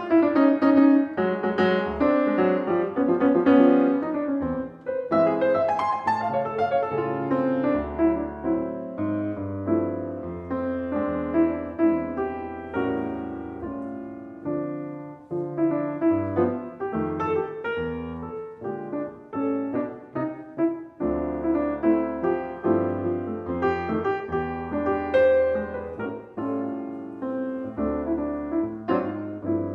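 Solo grand piano played in a jazz style: chords and melodic lines over low bass notes. It is louder for the first few seconds, then settles softer.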